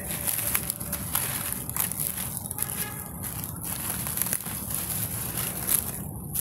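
Dry leaf litter crackling and rustling in scattered sharp clicks as a macaque moves and walks over it, over a steady high-pitched hiss.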